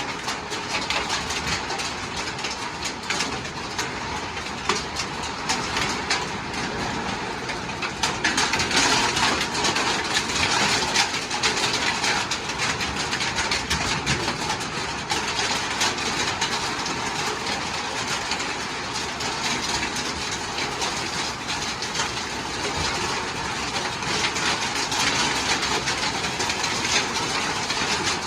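Steady rain falling: a continuous hiss of many small drop ticks, a little heavier from about eight seconds in.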